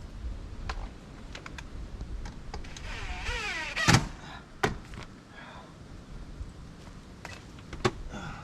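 Power drill running for about a second, its whine falling in pitch as it winds down, followed by a few sharp knocks.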